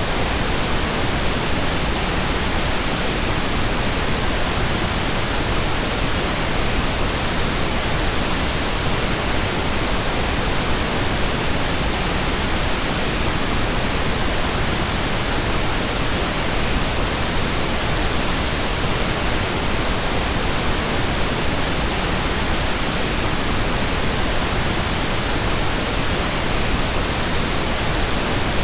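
Steady, unchanging pink noise: a continuous even hiss spread across all frequencies.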